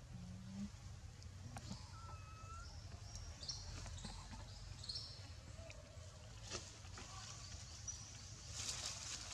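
Quiet outdoor ambience: a steady low rumble with scattered sharp clicks and several short, high chirps, and a brief hiss near the end.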